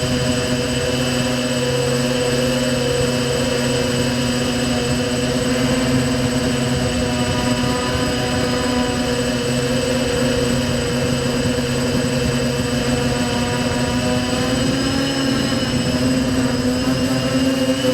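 Quadcopter's electric motors and 5x4.5-inch (5045) propellers buzzing steadily in flight, the pitch drifting slightly as motor speeds change and rising a little near the end.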